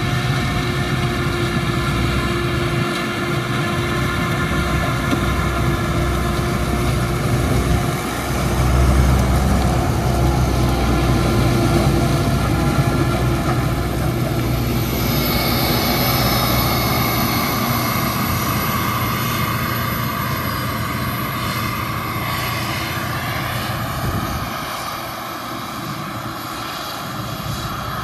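Diesel engines of a Claas Jaguar 960 forage harvester and a Fendt Vario 828 tractor pulling a silage trailer, running steadily under load while chopping maize. A higher hiss joins about halfway through.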